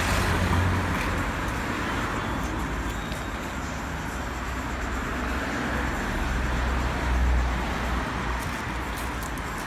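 Steady road traffic noise, swelling as vehicles pass at the start and again about seven seconds in.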